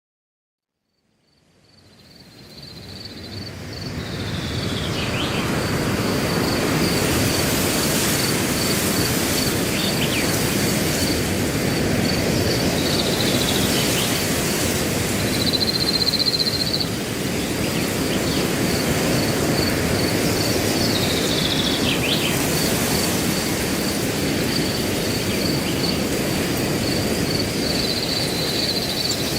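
Wind rustling through grass with a cricket chirping in a steady, even pulse, and a bird's short falling call repeated every few seconds. It fades in from silence over the first few seconds, and twice the cricket breaks into a longer trill.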